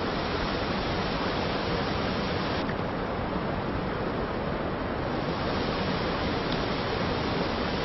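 Steady rush of a mountain river's flowing water, an even hiss; the higher part of the hiss dips for a couple of seconds near the middle.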